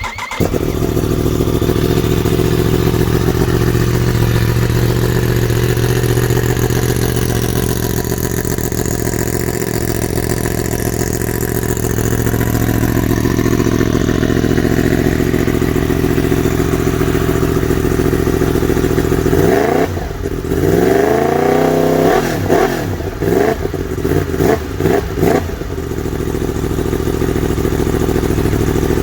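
Yamaha MT-10's crossplane inline-four idling steadily through the stock silencer with a decat link pipe, then revved in a series of throttle blips about two-thirds of the way in, each falling back to idle.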